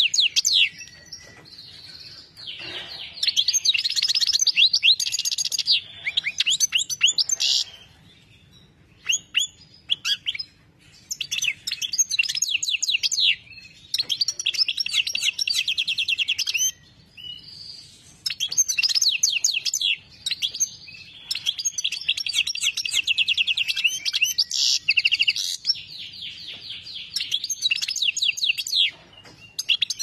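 Caged goldfinch singing: long phrases of rapid twittering trills and quick gliding notes, broken by short pauses, with a quieter stretch about a third of the way in.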